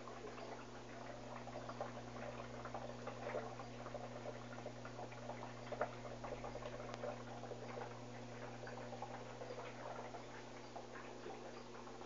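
Electrolux 13 kg washing machine running: a steady low hum under a dense, irregular patter of small clicks and splashes.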